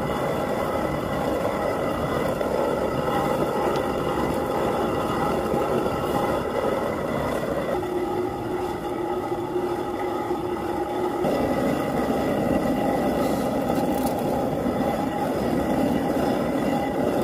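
Hand-turned stone quern (chakki) grinding roasted wheat grains coarsely. The upper millstone is rotated on the lower one and makes a continuous rumbling, scraping grind with a faint squeal.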